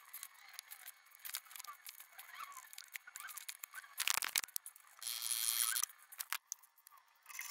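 Workshop handling noise: faint clicks and small chirps, then a cluster of sharp knocks about four seconds in as the camera is picked up and moved, followed by a brief hiss lasting under a second.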